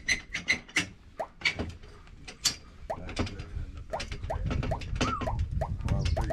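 Knocks and clicks with a run of short, rising squeaks as someone climbs a ladder against a boat hull. The squeaks come about three a second in the second half, over a low rumble that builds from about the middle.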